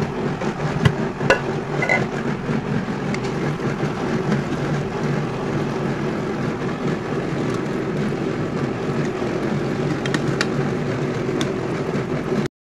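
Water running and splashing into a stainless steel colander in a kitchen sink as soaked dried Bombay duck (loitta shutki) is drained and rinsed under the tap. The sound is a steady, loud splashing, with a few light knocks near the start and again near the end.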